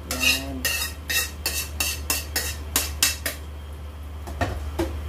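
A metal spoon scrapes and knocks against a metal wok and the rim of an aluminium pot as food is scooped from one to the other, about two sharp clatters a second. It then goes quieter, with a couple of lighter clinks near the end.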